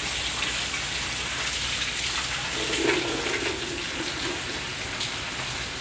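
Steady rain, with runoff water pouring off the roof edge in a stream.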